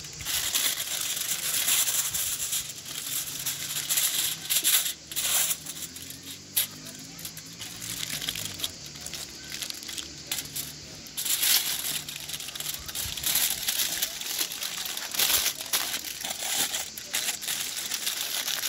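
Aluminium foil crinkling and rustling as hands fold and press it tightly around a half chicken, in uneven spells of crackly rustle.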